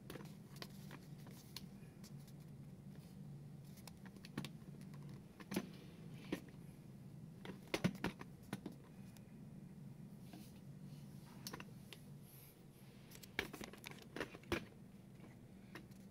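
Camcorder handling noise: light, irregular clicks and taps, several in quick succession about halfway through and again near the end, over a faint steady low hum of room tone.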